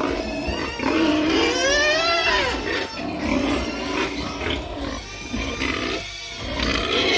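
Pigs squealing loudly in an overlapping chorus, with one long squeal about a second in that rises and then falls. They are clamouring for feed at feeding time.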